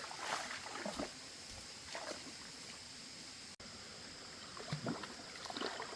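Shallow water splashing and sloshing in several short, irregular bursts as someone works by hand in the water catching fish, over a faint steady hiss.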